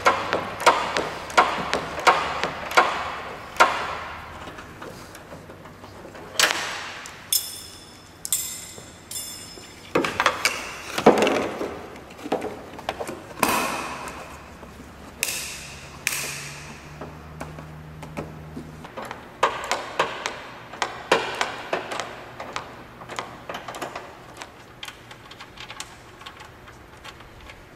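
Ratchet wrench clicking in short strokes, followed by assorted taps, knocks and a ringing metallic ping as tools and parts are handled under the hood, then a run of small rapid clicks.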